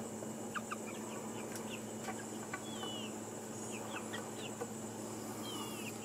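Young chickens (pullets) making short, scattered chirps and soft clucks, with two longer wavering calls about three seconds in and near the end.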